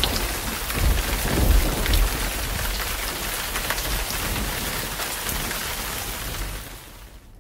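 Steady rain-like hiss with a low rumble underneath, fading away over the last second.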